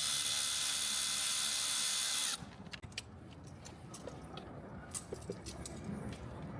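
Electric ratchet running steadily for about two seconds, driving down the hose clamp on an intercooler boot, then stopping abruptly; faint clicks and taps of the tool and clamp follow.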